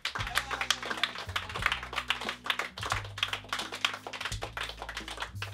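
A small group clapping, dense and irregular applause, over background music with a low sustained bass line.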